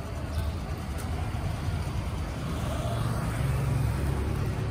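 Road traffic: a low motor-vehicle rumble from a passing vehicle, swelling about three seconds in.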